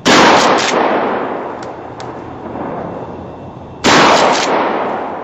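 Two Remington 870 pump shotgun slug shots about four seconds apart, each followed by a long echo dying away. Two faint clicks between the shots, as the pump is worked.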